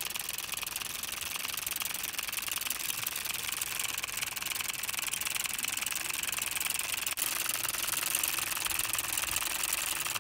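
Homemade two-cylinder solenoid engine running fast: a steady, rapid clatter of its plungers being snapped in and out of the copper coils.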